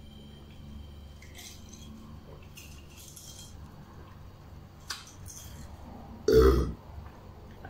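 A man burps once, loudly, about six seconds in, after gulping carbonated ghost pepper cola. Before it there are a few soft hissy breaths and a light click.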